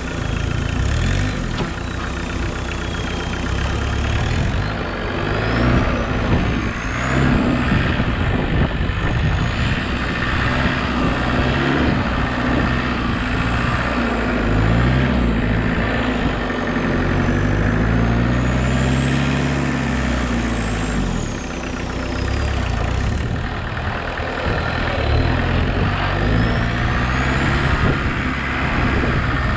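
Engine of a homemade 4x4 tractor running as it drives and manoeuvres, its revs rising and falling several times, with a high whine that rises and falls along with the revs.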